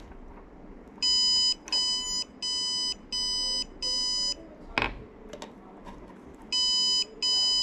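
An Arduino doorbell's buzzer beeping in a run of five short, shrill beeps, about half a second each with brief gaps. After a sharp click, a second run of the same beeps starts near the end.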